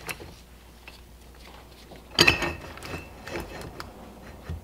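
Metal slip clutch parts being fitted together by hand: the assembly plate seated over the friction discs and bolts. A cluster of metal clanks and clicks comes about two seconds in, followed by a few lighter knocks.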